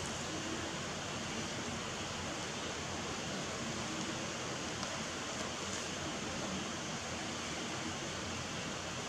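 Steady, even hiss of background noise, with no distinct sounds standing out.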